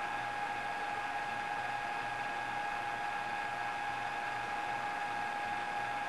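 Cooling fan of a hobby battery charger/discharger running with a steady whine over an evenly pulsing low hum, while the charger discharges a lithium camera battery at half an amp.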